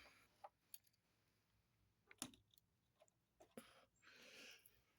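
Near silence with a few faint, scattered clicks and taps of a wrench working a motorcycle brake caliper's bleeder screw.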